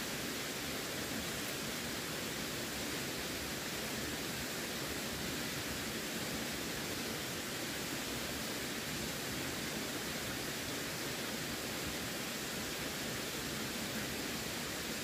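Running water, a steady, unbroken rushing hiss with no distinct splashes or changes.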